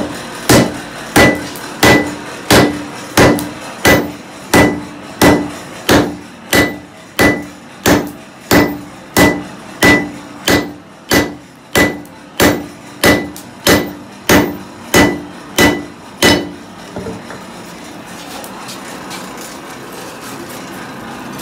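Blacksmith's hand hammer striking orange-hot iron bar stock on an anvil: about 26 evenly spaced blows, roughly three every two seconds, each with a short metallic ring. The hammering stops about 16 seconds in, leaving only a steady low background noise.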